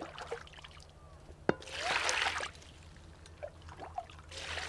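Water splashing and pouring in two short bursts, about two seconds in and again near the end, as water is scooped and handled by hand. A sharp click comes just before the first burst.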